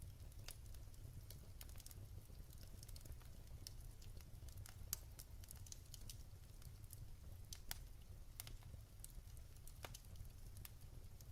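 Wood fire burning in a fireplace, crackling with irregular sharp pops over a low, steady rumble.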